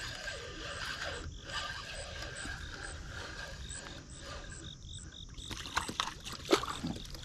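A small catfish splashing and thrashing at the water's surface as it is reeled in, with several sharp splashes in the last two seconds, the loudest about six and a half seconds in. Insects chirp in a steady rhythmic pulse behind it.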